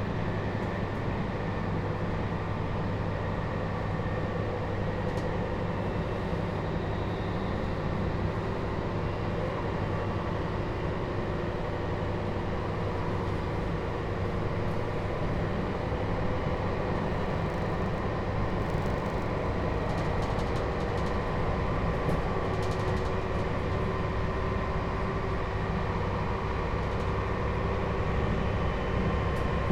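Running noise heard inside the motor car of a JR Hokkaido 721-series electric train with a Toshiba GTO inverter. There is a steady low rumble of wheels on rail, with faint steady tones from the drive above it, growing slightly louder near the end.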